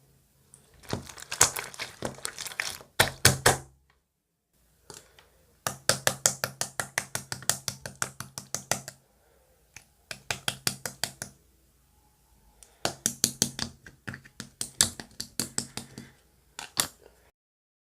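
Slime being pressed and squished by hand, giving runs of quick crackling clicks and pops, about six a second, in several bursts with short pauses. It cuts off suddenly near the end.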